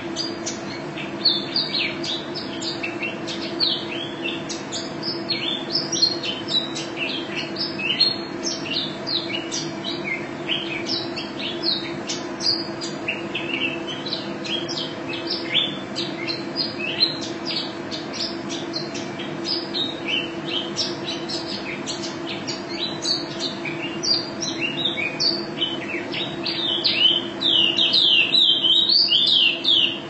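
Female pleci (white-eye) singing a fast, unbroken run of high chirps and short trills, denser and louder in the last few seconds. A steady low hum runs underneath.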